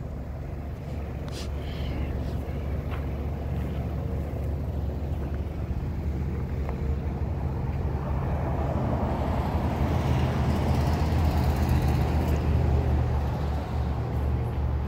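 Steady low hum of a road vehicle's engine, swelling louder from about eight seconds in and easing off near the end.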